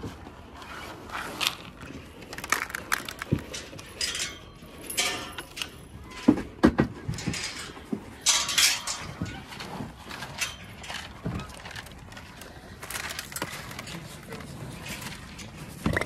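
Cattle eating grain from a feed trough: irregular crunching and rustling as they chew and push their noses through the feed.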